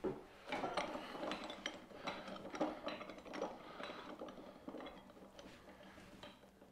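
Light clinks and knocks of kitchen utensils and dishes being handled, a quick irregular run of small taps and clatters over several seconds.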